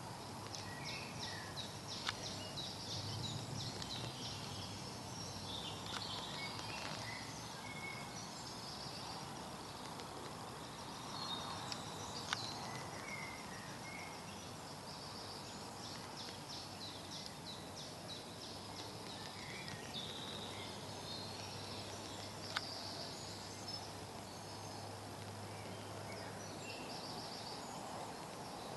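Woodland ambience with several small songbirds singing: repeated high trills and chirps throughout. A few sharp single clicks come about two, twelve and twenty-two seconds in, and a low steady hum runs underneath until shortly before the end.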